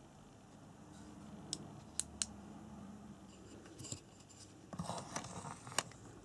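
Handling noise: three sharp clicks about a second and a half to two seconds in, then about a second of rustling and clatter ending in another click near the end.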